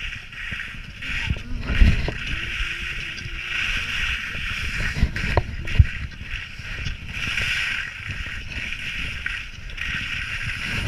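Skis scraping over snow, a steady hiss that swells and fades turn by turn, with low wind buffeting on the microphone and a couple of short thumps.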